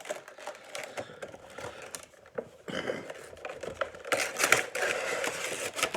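Toy box packaging being handled and opened: scattered clicks and taps, with louder stretches of rustling and scraping about three seconds in and again from about four seconds in to near the end.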